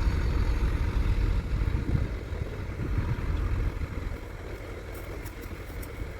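Heavy diesel engine running with a low rumble, getting quieter about four seconds in.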